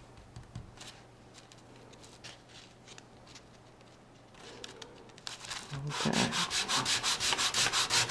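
A balsa wood strip rubbed on a sheet of sandpaper, sanding the fin stock to a point. It starts as light, scattered scrapes, and from about six seconds in turns to fast back-and-forth strokes, about seven a second.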